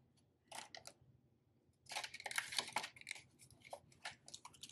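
Paper banknotes being handled and put into a clear plastic binder pouch: crisp rustling and crinkling, densest from about two to three seconds in, with scattered light ticks.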